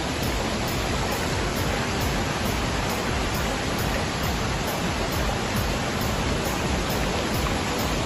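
Steady, unbroken rush of water from a waterfall and the rocky stream below it.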